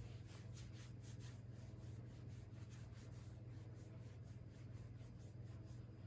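Quiet room with a steady low hum and faint soft rustles, densest in the first second or so, from a puppy being held on its back and stroked against a sweatshirt.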